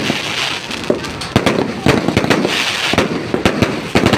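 Fireworks going off: a dense, irregular string of bangs and crackling pops, several a second.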